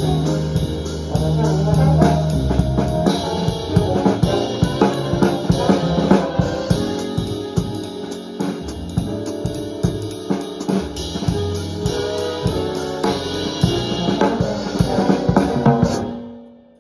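Jazz big band playing, with a drum kit played with sticks close up over guitar and band chords. Held low chords open it, the drums come in about two seconds in, and the sound fades out near the end.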